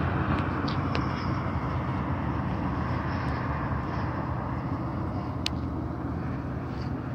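Road traffic: the noise of a passing vehicle slowly fades away, with a brief sharp click about five and a half seconds in.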